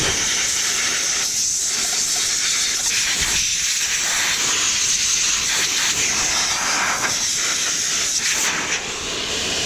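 Compressed-air blow gun hissing steadily as it blows dust out of a UPS unit. The jet cuts off near the end.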